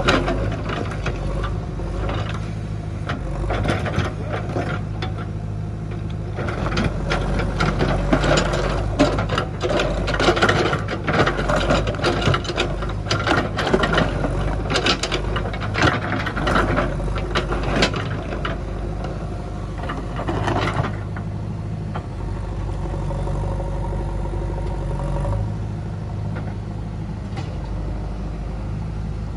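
JCB 3DX backhoe loader's diesel engine running steadily under load while its backhoe bucket digs and scrapes through stones and soil. Through the middle stretch there is dense clattering and knocking of rock and bucket, and near the end only the engine is heard.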